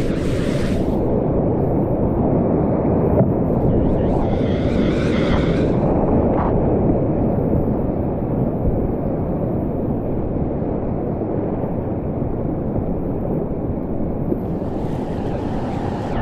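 Whitewater rapids rushing around a kayak: a steady, low, dull roar of churning river water. Brighter splashes rise above it at the start, again around four to six seconds in, and near the end.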